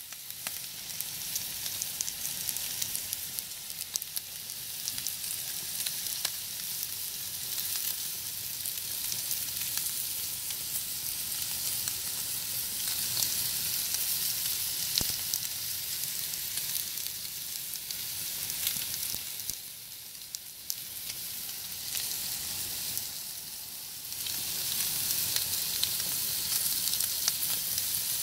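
Rib-eye steaks sizzling on the hot grates of a gas grill: a steady high hiss with scattered crackles and pops. It dips briefly twice about two-thirds of the way through, then comes back louder near the end.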